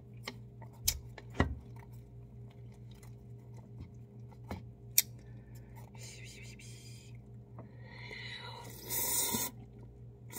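Disposable wooden chopsticks stirring noodles in a paper cup of instant ramen, with a few sharp clicks against the cup, then a loud slurp of noodles near the end. A steady low hum runs underneath.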